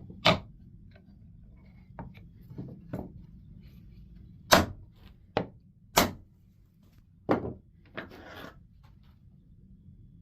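Irregular sharp knocks and clunks of wood and hand tools being handled on a workbench, about eight in all, the loudest a little before and a little after the middle, with a short scraping rustle near the end.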